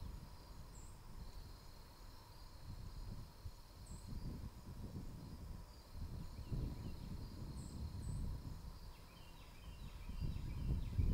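Wind gusting across the microphone in uneven swells, loudest near the end, with four short, very high bird chirps and some faint bird chatter near the end.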